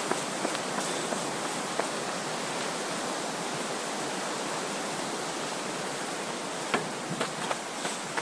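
Steady rushing of Bright Angel Creek flowing over rocks below a footbridge, with a few footsteps on the trail near the end.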